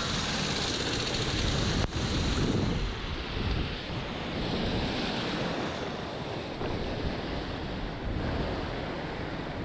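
Surf breaking and foamy whitewater rushing around a small kayak as it rides in through the shallows toward the beach, with wind buffeting the microphone.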